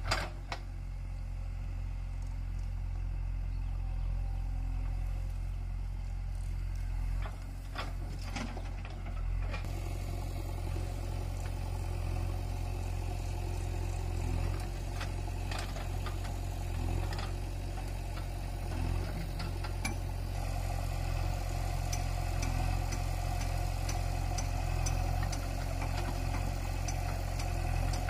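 Diesel engine of a JCB 3DX backhoe loader running steadily as it digs soil and loads it into a tractor trolley, with scattered clanks and rattles from the bucket and arm.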